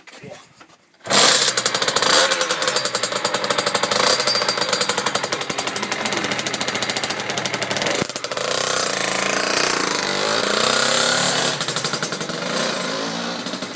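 Two-stroke moped engine of a CPI Supermoto, bored up with an 80cc Polini cylinder kit and breathing through a Yasuni R2 expansion exhaust, starting about a second in and then running loudly with a fast, rattly firing beat. The bike moves off near the end.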